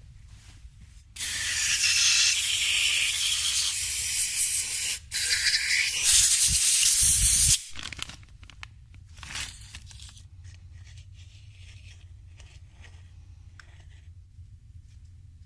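A pressurised spray hissing loudly in two long bursts, with a brief break about five seconds in, while carburettor parts are cleaned. It is followed by faint clicks and rattles of small parts being handled.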